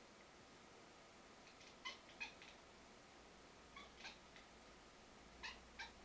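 Domestic cat chattering at birds: three pairs of short, high chirping clicks, a couple of seconds apart, the strange clicking noise a cat makes while watching prey.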